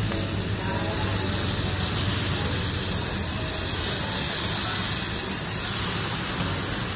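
A steady, loud hiss of noise, strongest in the highs, with no clear separate events.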